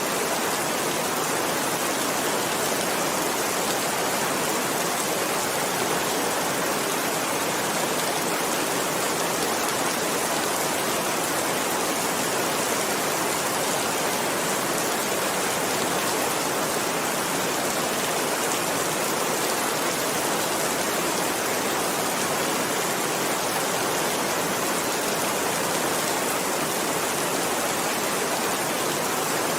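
Heavy rain falling steadily: a dense, even hiss of rain with no separate drops or thunder standing out.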